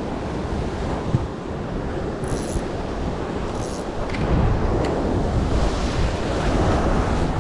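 Ocean surf washing and breaking against the foot of a rocky sea cliff, mixed with wind buffeting the microphone; the rushing grows a little louder about four seconds in.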